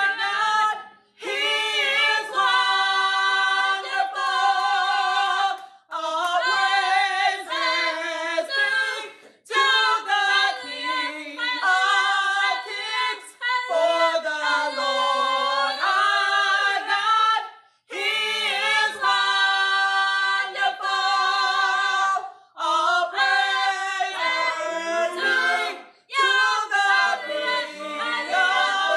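Church praise team of several voices, women's voices prominent, singing a worship song unaccompanied, in sung phrases of a few seconds with short breaks between them.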